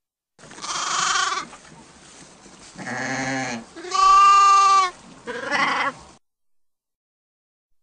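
Sheep bleating: four bleats, the second lower-pitched, the third the loudest and clearest.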